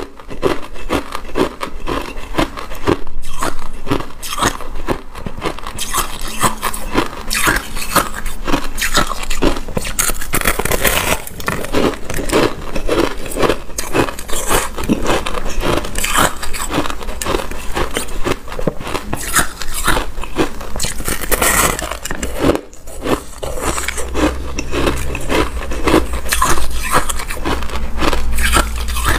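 Close-miked chewing of a mouthful of frosty crushed ice: a dense, continuous run of crisp crunches and crackles, with a brief lull about three-quarters of the way through.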